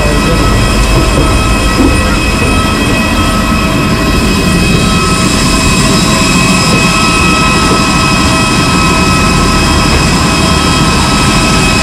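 Jet airliner noise on an airport apron: a loud, steady whine in several fixed pitches over a low rumble.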